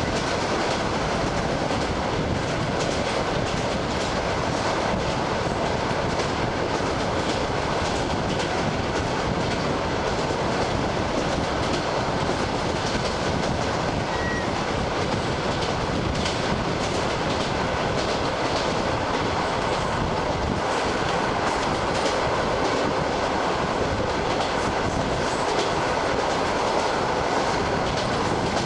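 ED9M electric multiple unit running at speed, heard from a carriage window: a steady rumble of wheels on rails with the fast clickety-clack of the wheels over the rail joints.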